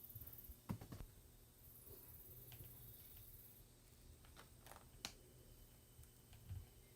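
Near silence in a small room, broken by a few scattered faint clicks and soft taps.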